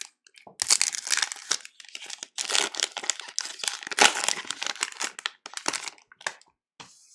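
Foil wrapper of a trading card pack crinkling and crackling as gloved hands pull it open and draw the cards out. It comes in irregular bursts, loudest about four seconds in, and thins to a few small crackles near the end.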